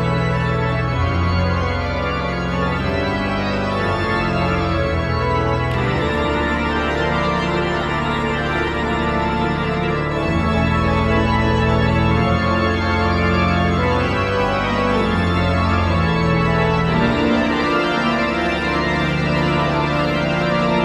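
Pipe organ playing full, sustained chords, with low bass notes changing every second or two.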